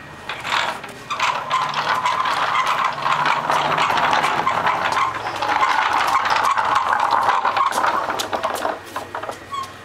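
Small wooden wheels of a child's wooden push-walker rolling over rough concrete: a steady rattle that starts about a second in and stops near the end.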